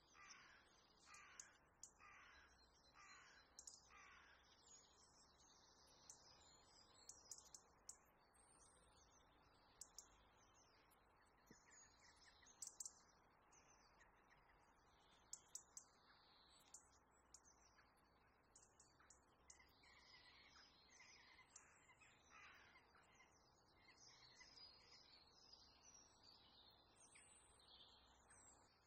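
Faint bird calls in the background: a run of five harsh calls about 0.7 s apart at the start, then scattered shorter chirps. A few faint sharp clicks fall in the middle.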